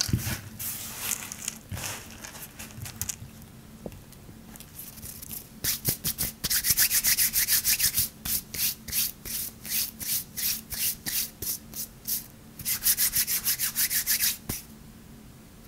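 Hands crushing a pile of dry hard-soap shavings with a crunch, then rubbing quickly back and forth across the flakes in rapid, rhythmic scratchy strokes that stop suddenly near the end.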